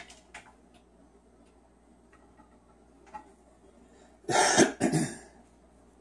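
Two harsh throat-clearing coughs in quick succession, a little over four seconds in.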